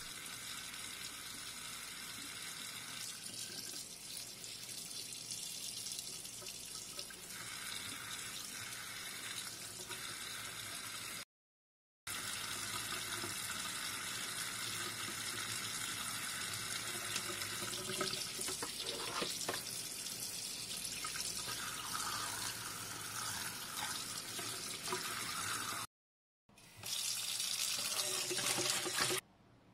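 Tap water running steadily into a sink and splashing over hands and small fish being rinsed. The sound breaks off abruptly twice for a moment, and is louder near the end.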